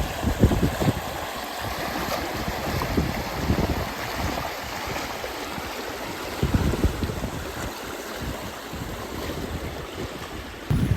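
Wind buffeting the microphone in low, gusty rumbles over a steady hiss of heavy rain; the strongest gust comes a little past the middle.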